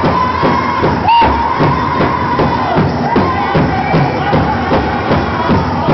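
Powwow drum group singing with a steady, evenly struck drumbeat. High, sliding voices ride over the beat and are strongest near the start, and crowd noise sits beneath.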